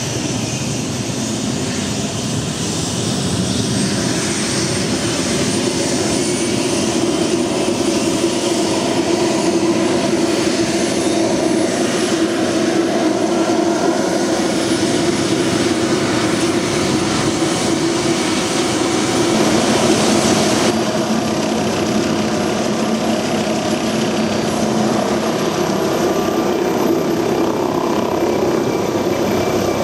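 MD 902 Explorer twin-turbine helicopter running on the ground, its main rotor turning, with a thin high turbine whine over the rotor noise. The sound grows louder a few seconds in as the rotor spins up toward lift-off.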